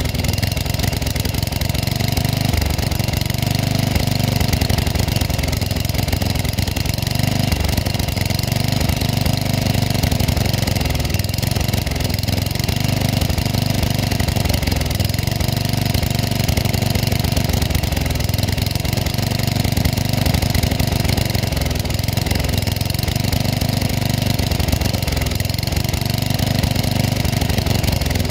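Garden tractor engine idling steadily.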